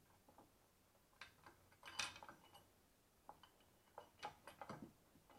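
Faint, irregular clicks and light knocks of metal and plastic parts being handled as a VESA bracket is fitted onto the head plate of a Huanuo dual monitor arm, loosely, before the screws are tightened. The loudest knock comes about two seconds in, with a cluster of smaller clicks near the end.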